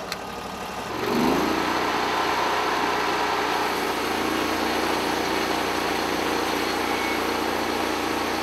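Portable band sawmill's engine revving up about a second in, then running steadily.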